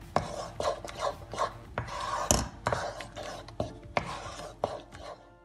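Wooden spoon stirring thick milk pudding in a nonstick kadhai: a run of scrapes and taps against the pan at about two a second, with one louder knock a little over two seconds in.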